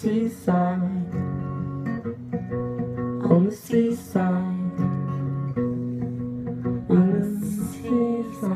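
Background music: a slow song on strummed acoustic guitar, a new chord about once a second.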